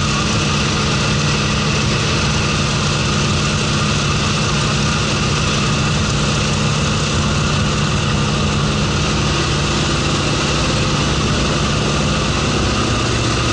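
Steady drone of an aircraft's engines heard inside the cabin, with a constant rush of air noise over it.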